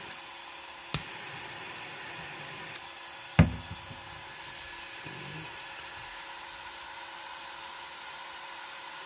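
Steady whirr of 3D printer fans running, with a light click about a second in and a sharp knock about three and a half seconds in.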